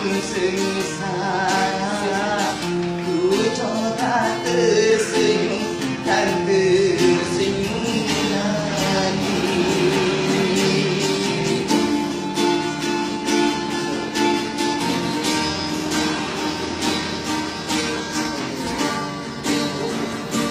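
A street busker's male voice singing a slow melody with a wavering vibrato on the held notes, over a plucked string accompaniment.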